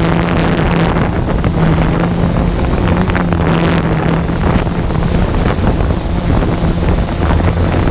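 SimToo Dragonfly drone's propellers humming steadily in flight, mixed with wind buffeting the microphone.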